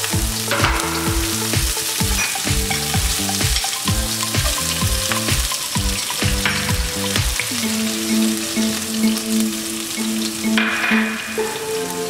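Whole cumin and fenugreek seeds with chopped green chilli sizzling in hot oil in a wok, the tempering (tadka) for dal fry. Background music with a steady beat and bass notes plays over it, changing to long held tones about two-thirds of the way in.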